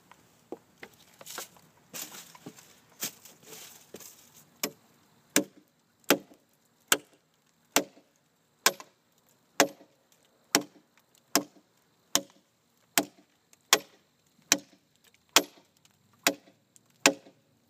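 Handmade ATS-34 steel camp knife with a 13-inch blade chopping into tough hardwood. After a few seconds of quieter scuffing, about sixteen sharp, even strikes land a little more than one a second.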